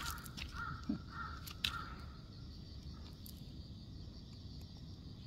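A quick series of about four short animal calls in the first two seconds, with a few sharp clicks among them; after that only a low steady background.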